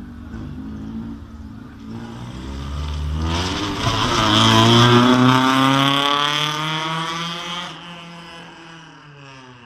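A Honda hatchback race car's engine revving hard as it accelerates through a slalom corner and passes close by. It rises in pitch and loudness to a peak about halfway through, then the pitch falls and the sound fades as the car pulls away.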